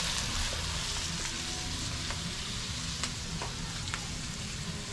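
Vegetables frying in oil and curry masala in a nonstick wok over a gas burner, a steady sizzle, while a wooden spatula stirs them, with a few sharp clicks of the spatula against the pan about three to four seconds in.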